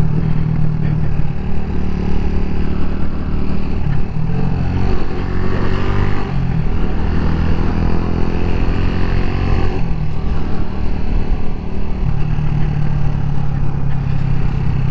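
A 2008 Sukida SK125's 125cc engine running steadily under way, heard through a microphone inside the rider's helmet. The engine note rises and falls a little around the middle as the revs change.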